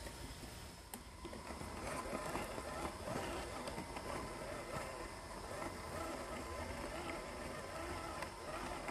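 Stock 180-size brushed motor and plastic gearbox of a WPL RC crawler whining, the pitch wavering up and down with the throttle, with a few short clicks.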